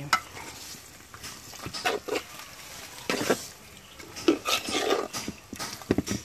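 A metal spoon scraping and clinking against a metal cooking pot as raw fish pieces are stirred and turned in a thick fried spice paste. The sounds are irregular, and the pot sizzles lightly.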